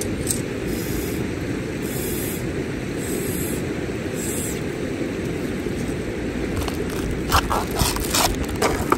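A steady low rushing noise runs under a few short high hisses in the first half. Near the end comes a quick run of sharp clicks and rustles as wooden disposable cutlery is pulled from its cardboard box.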